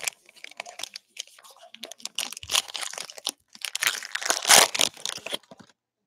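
Foil wrapper of a trading-card pack crinkling and tearing as it is ripped open and the cards are slid out, a dense crackle that is loudest about four and a half seconds in and stops shortly before the end.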